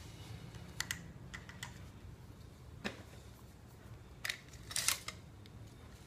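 Light hard-plastic clicks and clacks of PVC pipes and fittings being handled and knocked together, about half a dozen scattered taps with the loudest couple near the end, over a faint low hum.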